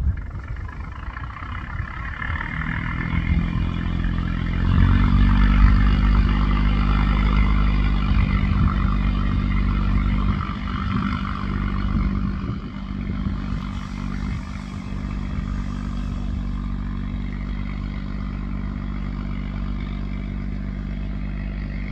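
Barge diesel engines running under throttle on a test run. The engine note comes up about two and a half seconds in, picks up sharply near five seconds, then eases after about ten seconds into a steady run.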